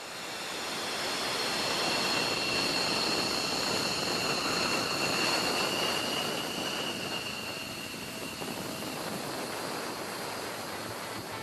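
F-16 fighter's jet engine running on the ground: a steady rushing roar with a high, even turbine whine. It swells over the first couple of seconds, then eases slightly.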